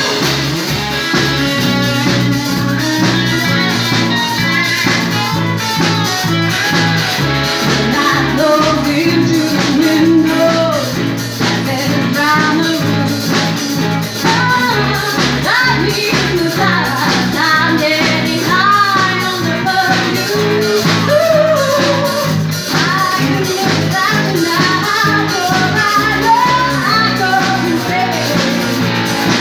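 Live band playing a song: singing over electric guitars, bass and a drum kit keeping a steady beat.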